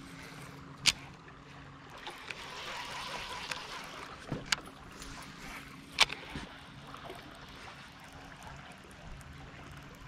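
Electric trolling motor humming steadily on a small aluminum boat, with river current rushing past. Three sharp clicks or knocks stand out, the loudest about six seconds in.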